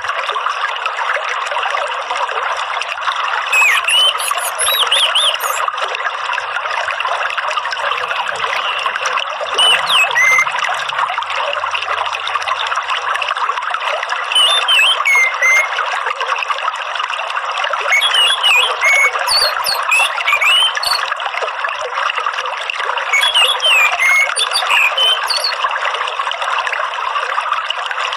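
Steady running water, like a trickling stream, with short orange-headed thrush chirps in clusters every few seconds over it: a lure recording played to stimulate caged thrushes to sing.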